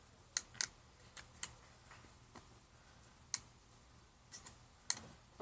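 Faint, irregular small clicks and taps, about a dozen, as a broken mobile phone is pried apart by hand.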